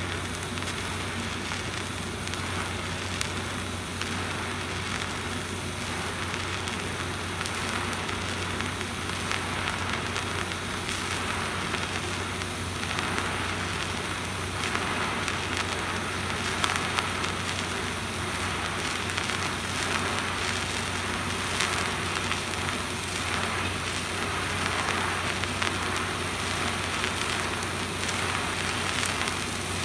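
Electric welding arc burning at 150 amps: a steady crackling sizzle with a low hum underneath and a few sharper pops in the second half.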